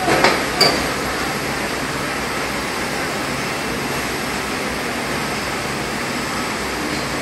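Steady noise of heavy machinery running during a crane lift of a heat exchanger, with two sharp metallic knocks in the first second, the second ringing briefly.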